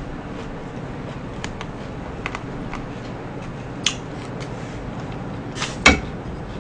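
Close-up eating sounds: scattered sharp clicks and smacks as wooden chopsticks work food from plastic takeout trays, the loudest click just before the end, over a steady low background hum.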